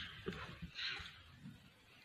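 Komodo dragon swallowing a monkey: faint wet squelches and a few small clicks.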